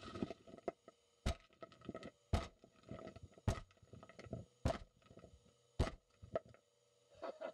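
A series of heavy knocks, six strong blows at a steady pace of about one a second, with lighter knocks between them, over a faint steady hum.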